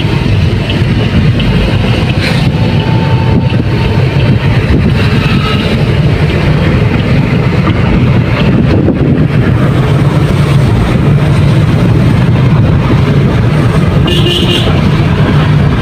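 Vehicle in motion: a steady, loud low rumble of engine and road noise with wind buffeting the microphone.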